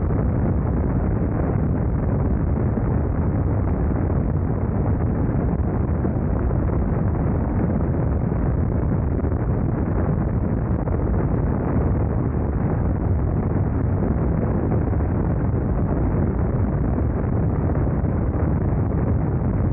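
Steady rush of wind on the microphone, mixed with the running air/oil-cooled boxer-twin engine of a BMW R nineT Scrambler cruising at an even road speed.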